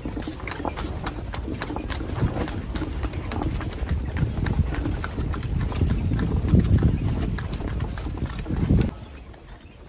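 Hooves of a horse pulling a tanga (horse-drawn cart) clip-clopping at a steady trot, over a steady low rumble; the sound drops off abruptly about a second before the end.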